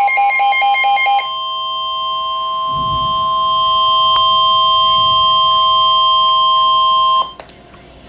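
Emergency Alert System warning alarm from a NOAA Weather Radio broadcast, the tone that signals a severe thunderstorm warning: rapid beeping for about the first second, then one steady high tone held for about six seconds. It cuts off suddenly, leaving faint radio hiss.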